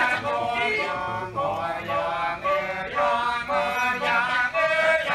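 Kecak vocal chorus: men's voices chanting and singing long held notes in phrases of about a second each.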